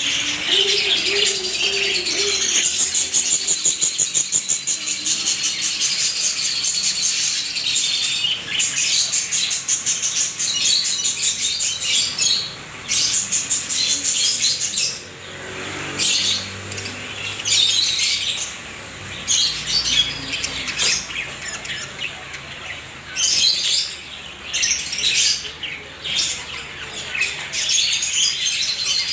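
A colony of budgerigars chattering and warbling together: many overlapping high chirps and trills, dense and fast at first, then in bursts with short lulls.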